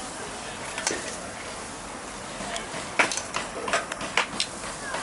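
Metal kitchen tongs clicking and knocking against a pan: a single click about a second in, then a quick run of sharp clicks about three seconds in. Steady street noise runs underneath.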